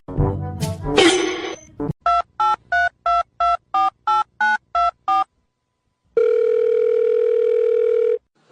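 Telephone keypad dialing: about ten quick two-pitch beeps whose pitch changes from key to key, then after a short pause one steady ringing tone about two seconds long. A short sweeping noise comes before the dialing.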